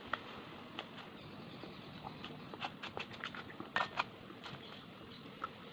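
Person eating biryani close to the microphone: faint chewing and mouth smacks with scattered small clicks as the food is handled, two sharper clicks about four seconds in.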